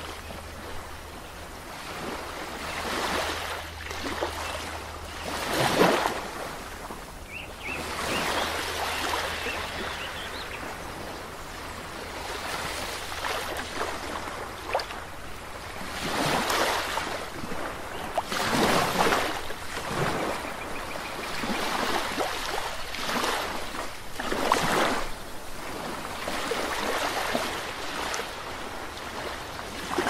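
Small waves breaking and washing up on a sandy beach, each surge rising and falling every few seconds, with a few faint bird chirps about seven seconds in.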